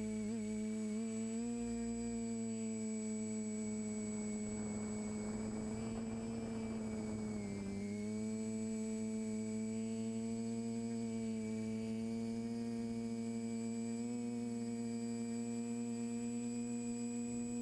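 TBS Discovery Pro quadcopter's electric motors and propellers, heard from the camera on board, humming steadily at one pitch. The pitch dips briefly about halfway through, then settles again.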